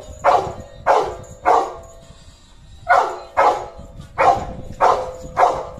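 Labrador puppy barking at a monkey: about eight short barks, three in quick succession, a pause of about a second, then five more.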